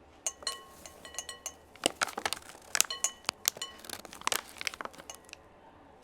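Glass clinking and knocking: a quick, irregular series of sharp clinks, several ringing briefly at the same pitch, busiest in the middle.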